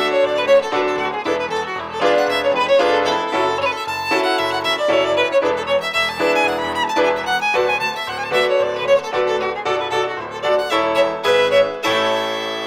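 Fiddle playing a lively contra dance tune over a rhythmic accompaniment with a steady beat, settling into a held final chord near the end.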